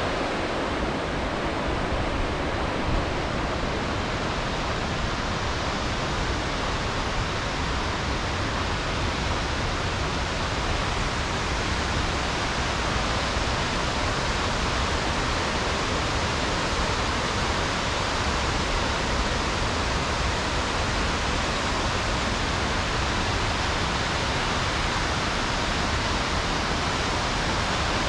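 Bâlea Waterfall: falling water making a steady, even rush with no change throughout.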